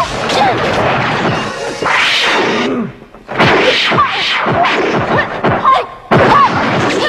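Martial-arts film fight sound effects: a rapid run of punch and kick impacts, whacks and thuds, with a brief lull about three seconds in.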